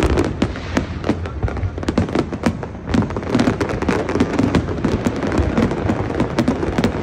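Fireworks: aerial shells bursting in rapid, irregular bangs and crackles, many in quick succession.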